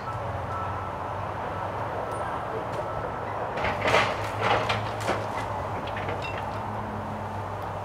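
Excavator engine running steadily, with a burst of metallic clanking and squealing about four to five seconds in.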